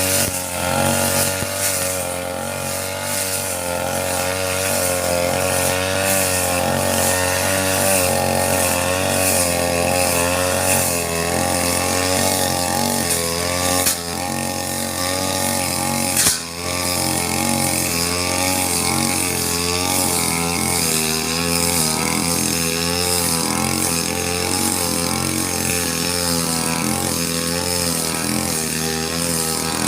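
Falcon 328 two-stroke brush cutter running under load while cutting grass, its engine pitch wavering up and down as the throttle and load change. Two sharp clicks sound about halfway through.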